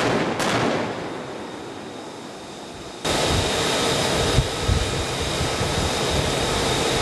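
A warship's deck gun firing a shot just after the start, its boom fading away over the next couple of seconds. From about three seconds in, a steady rush of wind and water as the Italian frigate F 590 Carlo Bergamini runs at speed.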